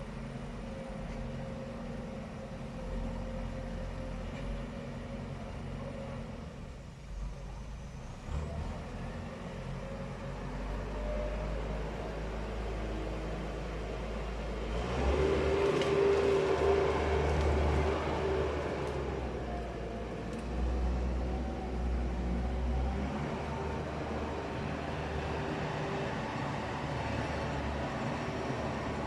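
Engine of heavy machinery running steadily, working harder for a few seconds about halfway through before settling back.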